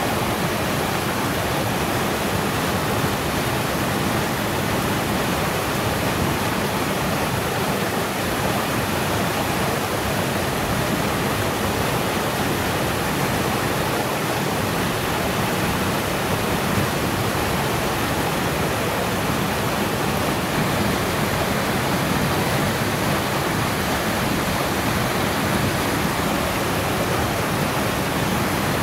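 Mossy Cave waterfall pouring over a sandstone ledge and splashing into a shallow pool: a steady, unbroken rush of water.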